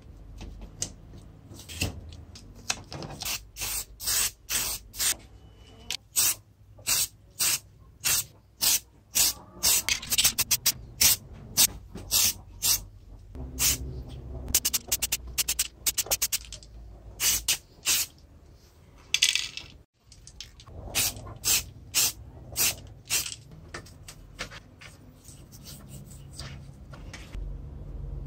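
Aerosol spray-paint can sprayed in many short, hissing bursts, at times two or three a second, with a brief gap about two-thirds of the way through.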